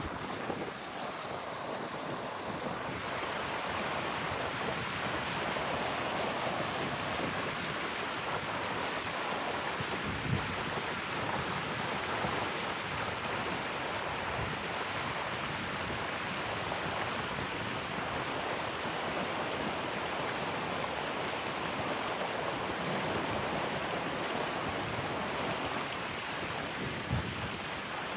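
Steady rush of flowing rainwater, with two brief low thumps of wind on the microphone.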